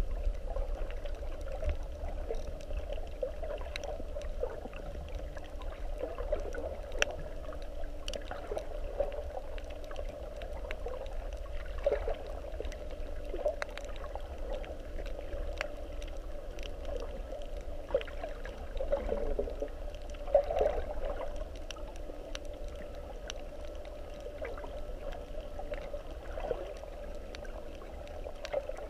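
Muffled underwater sound picked up by a submerged camera: a steady water rumble and hum with scattered sharp clicks and a few swells of gurgling.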